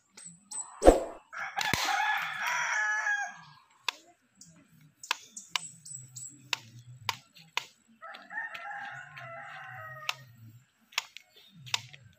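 A single sharp snap about a second in, the loudest sound, as the homemade PVC slingshot is shot. A rooster then crows for under two seconds, and crows again more faintly near the end, with scattered sharp clicks in between.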